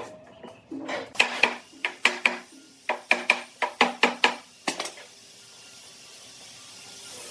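About a dozen sharp hammer strikes in quick runs and pairs, each with a short ringing tail. After that a steady hiss comes in and slowly grows louder.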